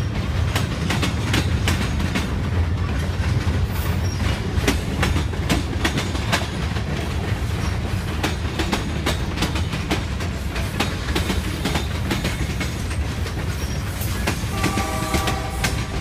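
Freight cars rolling past: a steady low rumble with the rapid clickety-clack of steel wheels over rail joints. A few steady high tones join near the end.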